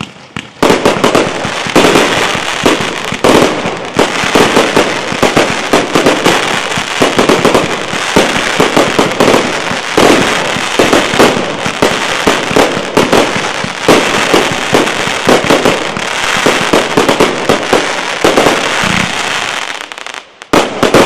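Fireworks display firing a dense barrage: rapid, overlapping bangs of aerial shells bursting, with crackling between them. It starts about half a second in, keeps up almost without a break, and dips briefly shortly before the end before a few more loud bangs.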